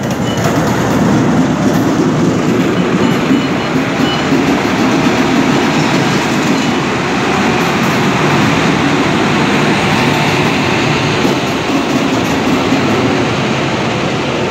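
Indian Railways WAP-7 electric locomotive moving slowly past at close range: a steady, loud running noise of the locomotive and its wheels on the rails, with some clickety-clack.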